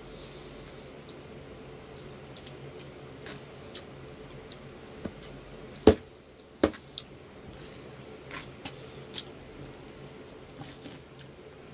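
Eating sounds of creamy shrimp fettuccine Alfredo: small wet squishes and clicks, with two sharper clicks about six seconds in. A faint steady hum runs underneath.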